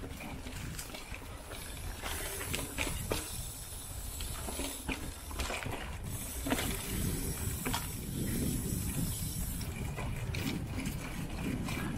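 Mountain bike riding over a rough dirt trail: a steady rumble of tyres rolling on the ground, with frequent sharp knocks and rattles from the bike over bumps and stretches of high hiss.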